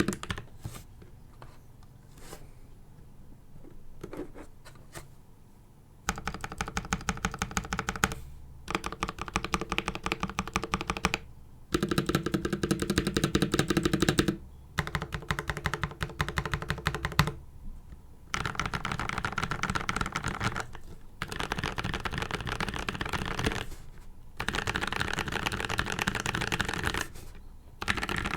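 Mechanical keyboard with Krytox-lubed PACO switches and PBT cherry-profile keycaps, typed on without a desk mat. A few scattered keystrokes come first, then from about six seconds in, repeated bursts of rapid key-mashing a few seconds long, each followed by a short pause.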